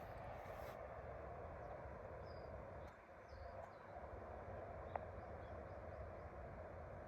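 Faint outdoor ambience: a steady soft hiss with a few short, faint, high bird chirps scattered through it, and a single small click about five seconds in.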